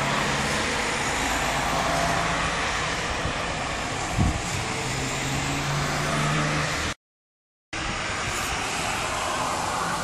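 Steady outdoor noise of road traffic, with a low engine hum, and a brief low thump about four seconds in. The sound cuts out completely for under a second near the end.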